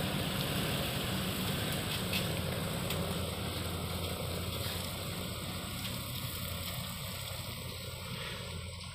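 Dump truck engine running steadily, fading slowly as it moves away.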